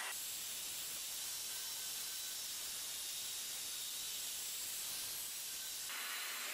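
Single-action rotary polisher with a sponge buff, run at its top speed setting and pressed against car paint with fine compound, heard as a steady hiss with a faint high whine.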